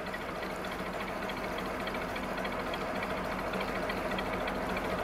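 Narrowboat's diesel engine running steadily at low cruising speed, an even mechanical beat.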